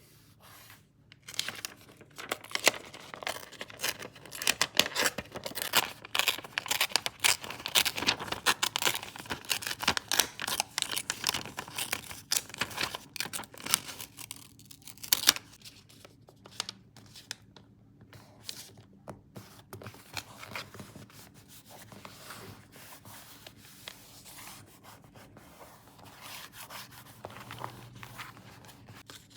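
Paper handled close to the microphone, torn and crinkled: a dense run of crackling and rustling for about the first half, then softer, sparser rubbing and scraping.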